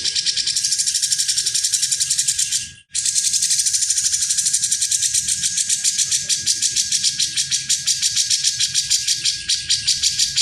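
Grey-cheeked bulbul (cucak jenggot) giving a fast, rattling chatter, high-pitched and continuous, broken once by a brief pause about three seconds in.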